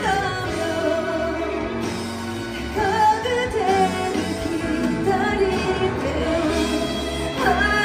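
A song with a sung vocal over instrumental backing, played back through Geithain MO-2 studio monitor speakers fed by an Antelope Zodiac DAC.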